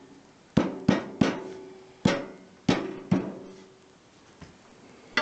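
Metal cooktop plate and its burner rings of a stove-fireplace being set in place: six sharp clanks over about three seconds, each ringing briefly.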